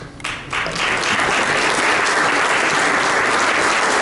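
Audience applauding: a few first claps, then full, steady applause from about a second in.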